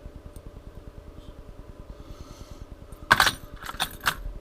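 Fishing lures clattering against each other and the tackle box as they are handled: a sharp rattle about three seconds in, then three lighter clicks. A steady low hum underneath.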